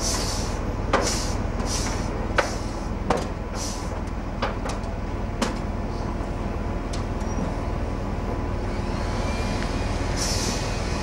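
A crane's engine running steadily while it takes up the weight of a ship's yard, with several sharp knocks in the first half and a few short hisses, one near the end.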